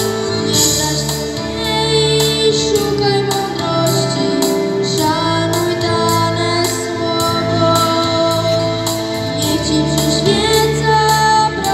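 A girl singing into a microphone, amplified through a PA loudspeaker, in long held notes over an instrumental accompaniment.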